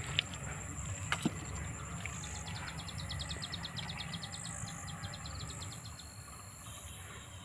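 Outdoor rural ambience: a steady low rumble and a thin, steady high whine, with a rapid, even, high-pitched chirping trill lasting about two and a half seconds from around two seconds in. A few faint clicks come in the first second and a half.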